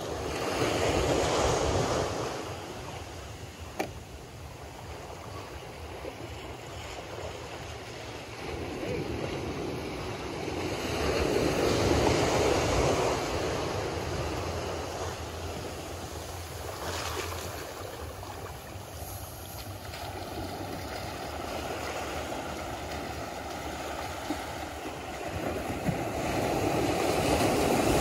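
Gentle ocean surf breaking and washing up a sandy beach, swelling louder in three slow surges roughly ten to fifteen seconds apart. A brief sharp click about four seconds in.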